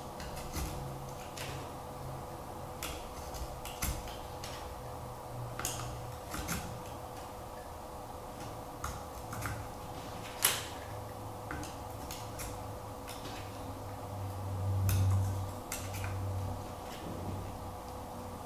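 Light, irregular clicks and taps of clear acrylic panels being handled and slotted into the LED Nixie clock kit's frame, with one sharper click about ten seconds in and a duller low rub around fifteen seconds. A steady faint hum runs underneath.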